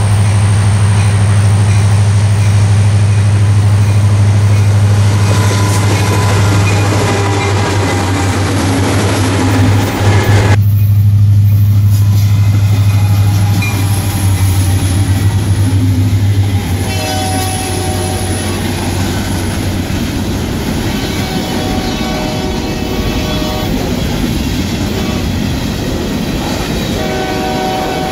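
Union Pacific diesel freight locomotive approaching and passing, loud, with its horn sounding. From about two-thirds of the way in, the freight cars roll by, wheels clacking with intermittent squeals.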